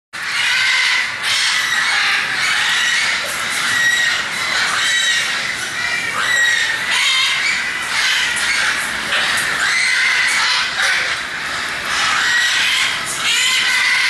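A large flock of macaws, blue-and-gold macaws among them, calling loudly, with many calls overlapping without a break.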